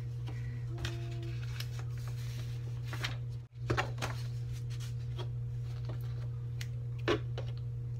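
Printed paper sheets being handled and rustled, then scissors snipping, with one sharp snip about seven seconds in, over a steady low hum. The sound cuts out for a moment about halfway through.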